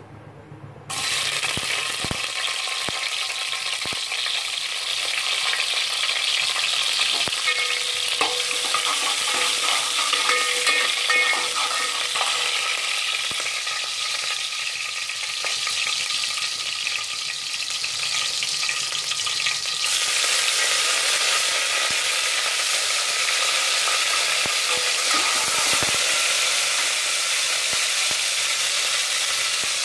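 Spices sizzling in hot oil in a metal pot while a spoon stirs them. The sizzle starts abruptly about a second in and gets louder again about two-thirds of the way through, with green chillies, dried red chillies and curry leaves frying in the oil.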